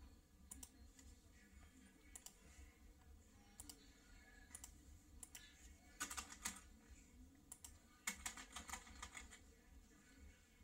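Faint typing on a computer keyboard: a few single clicks, then two quick runs of keystrokes about six and eight seconds in.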